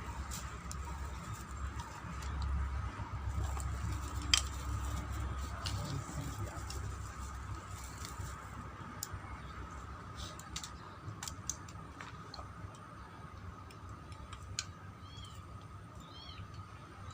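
Scattered light clicks and taps over a steady faint high hum, with some low rumble in the first half. Near the end a bird gives several short chirps.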